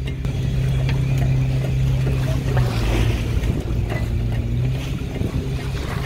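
Fishing boat's engine running with a steady low drone, under the rush of sea water along the hull and wind.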